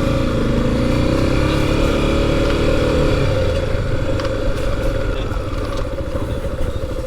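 Off-road motorcycle engine running under way, rising in pitch over the first few seconds as it picks up revs, then holding steady, with wind and rumble on the bike-mounted microphone.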